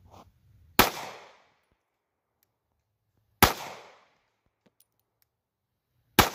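Three pistol shots from a micro-compact .380 ACP handgun, about two and a half seconds apart, each a sharp report trailing off over about half a second.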